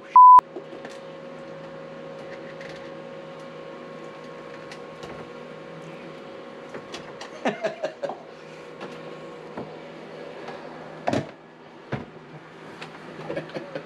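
A short, loud electronic beep, then a steady mechanical hum that fades out about ten seconds in. Scattered clicks and knocks of handling come in the second half.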